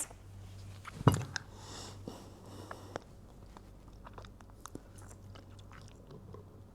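Small handling noises: scattered light clicks and crackles with one sharper knock about a second in, over a faint low steady hum.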